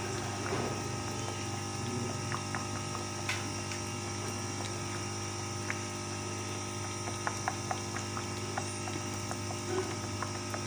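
Egg masala gravy simmering in the pan, giving scattered small pops and ticks, more of them in the second half, over a steady low hum.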